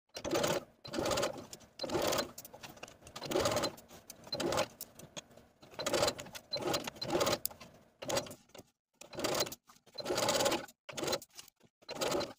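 Domestic sewing machine stitching a seam in short bursts, stopping and starting about a dozen times as the fabric is guided around a curve.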